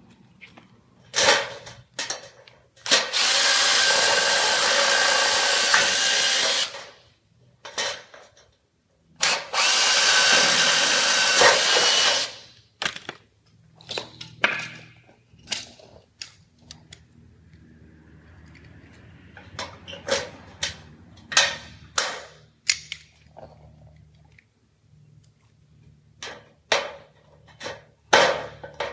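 Cordless drill running in two steady bursts of about three seconds each, drilling through the steel box gutter. These are followed by a long string of short sharp clicks and knocks of tools and metal being handled.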